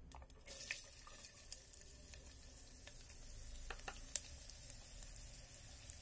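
Chopped onions tipped into hot mustard oil in an electric kettle pot. The oil starts to sizzle about half a second in and keeps sizzling steadily, with scattered crackles and one sharp pop about four seconds in.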